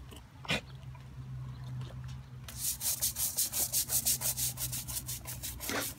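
Stiff plastic scrub brush scraping over a large sulcata tortoise's shell. A few soft strokes at first, then from about halfway a fast, even run of scratchy strokes, about five a second.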